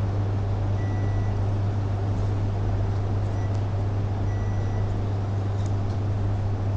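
Steady low hum with an even hiss over it: the background noise of the hall picked up through the microphone setup.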